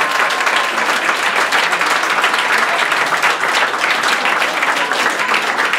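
A room full of people applauding, many hands clapping at once at a steady level.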